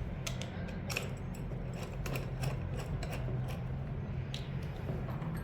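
Light metallic clicks and scrapes of machine bolts being fitted and started by hand into the brush cutter's engine mounting holes, several small ticks a second, over a steady low hum.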